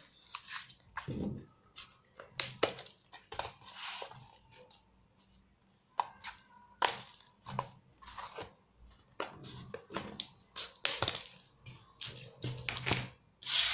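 Scissors snipping through the ends of rolled paper tubes: a series of short, crisp cuts at irregular intervals, with a brief pause partway through.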